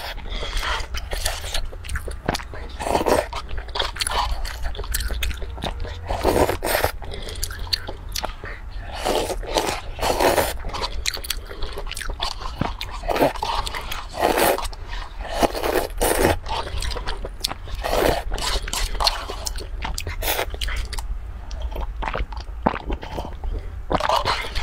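A person eating crunchy food from a paper cup: irregular crunching bites and chewing, roughly one a second.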